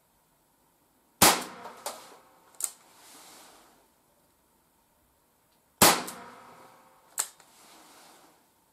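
Two shots from a 4mm Randz long Flobert rimfire revolver, about four and a half seconds apart, each a sharp crack with a short ring-out. Each is followed within a second or so by one or two lighter sharp clicks.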